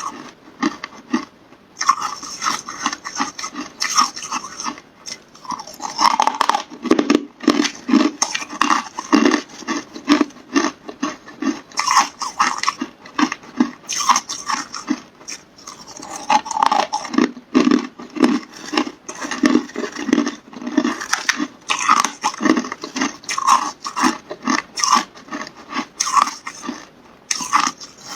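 A person biting and chewing hard carbonated ice close to the microphone, with crisp crunches coming thick and fast, several a second, in repeated bouts.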